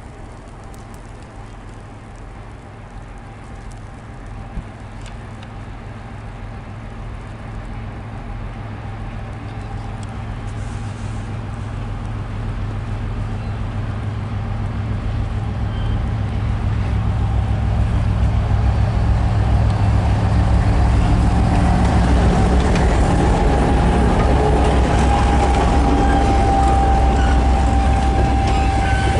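A 2M62U twin-section diesel locomotive hauling a freight train approaches and passes, its two-stroke diesel engines running with a deep hum and a steady whine above it. The sound grows louder for about twenty seconds, then holds loud as the locomotive draws level.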